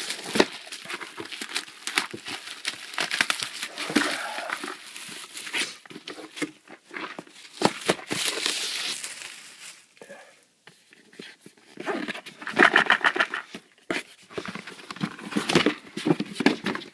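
Plastic wrapping crinkling and rustling in irregular handfuls as the packaging is opened, with a denser, louder stretch of crinkling about twelve seconds in.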